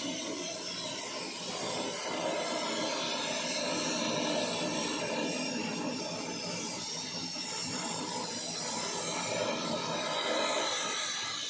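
A machine running steadily: a continuous hum with a whine of several steady tones and a hiss above.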